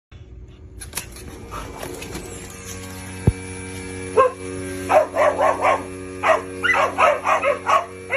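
A dog barking in a rapid string of short, sharp barks from about four seconds in, over a steady low hum. A single sharp knock comes a little before the barking starts.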